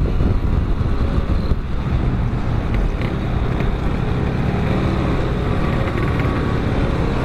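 Motorcycle engine running at road speed, with a dense low rumble of wind on the helmet microphone and the engine note shifting in pitch partway through.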